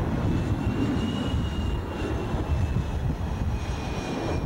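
Twin F404 turbofan engines of an F/A-18C Hornet running at taxi power close by: steady jet noise with a thin high whine riding above it.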